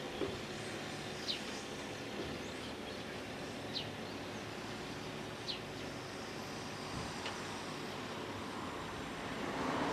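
Scania R440 timber truck's diesel engine running steadily to drive the V-Kran V13 crane's hydraulics, with a few light knocks as the grapple handles spruce logs. The sound grows louder near the end.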